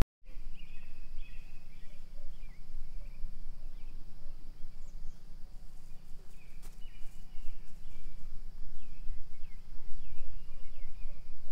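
Small birds chirping in short repeated phrases, over a low steady rumble.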